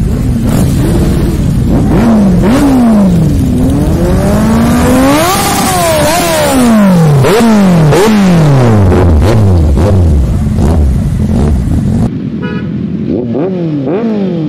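Motorcycle engines revved again and again, each throttle blip climbing in pitch and then falling away, with a long rev peaking about five to six seconds in. Near the end the sound drops suddenly to a quieter engine still being blipped.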